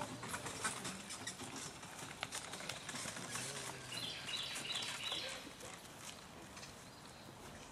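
A carriage horse walking on grass while pulling a carriage: soft, irregular hoof steps and clicks from the harness and carriage, fading toward the end.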